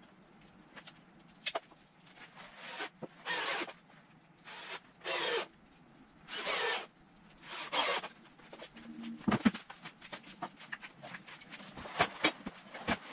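Timber frame of 2x6 and 2x4 lumber being worked by hand on sawhorses: four short rasping scrapes a second or two apart, then a few sharp knocks and clatters near the end.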